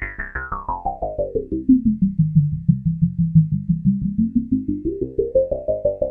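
Arturia MatrixBrute synthesizer playing a fast repeating sequence of notes, about five a second, through a Jove80 eurorack filter, a copy of the Roland Jupiter-6/SH-101 low-pass. The resonant filter cutoff sweeps down from bright to dark over the first two seconds, stays low, then opens partway again about five seconds in.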